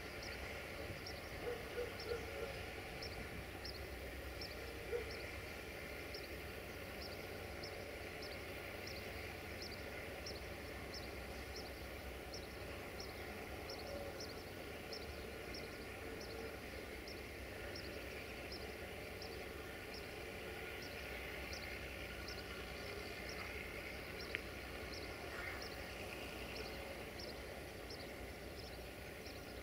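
Low, steady rumble of a rail track maintenance machine's engine running as it creeps along the track, with a short high chirp repeating evenly about one and a half times a second.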